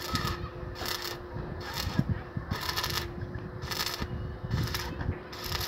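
Stick (arc) welding on mild-steel square tubing: the arc crackles and sizzles in repeated bursts, about one every second or less, over a steady hum.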